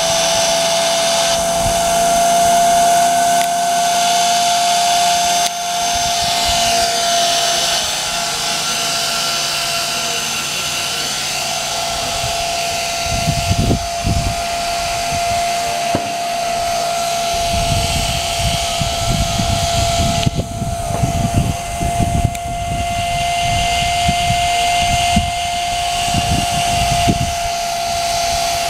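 Blade 250 CFX electric model helicopter running, its motor and rotors giving a steady high whine throughout. Gusty low rumbling joins in about halfway through.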